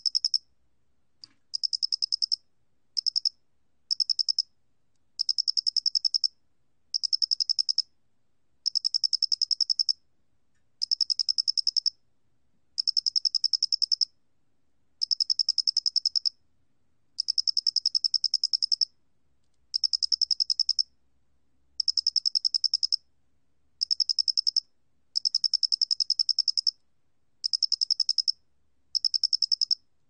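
Loxoblemmus doenitzi, the angular-headed field cricket, singing at 29 °C: a high-pitched pulsed trill in repeated bursts of about half a second to two seconds, with short pauses between them.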